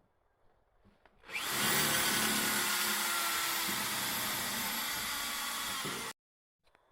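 An electric power tool running steadily for about five seconds, a loud, hissy whir with a slowly dropping pitch, starting about a second in and cutting off suddenly.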